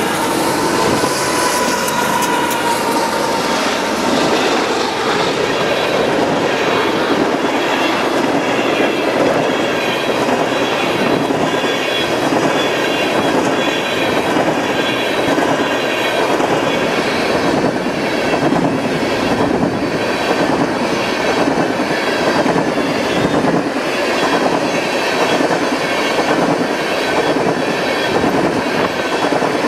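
Freight train cars rolling past, with wheels clacking over the rail joints and a thin squeal from the wheels.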